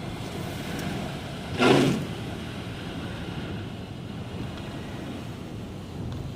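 Steady road and engine noise of a car driving on a highway, with one brief loud rush of noise about one and a half seconds in.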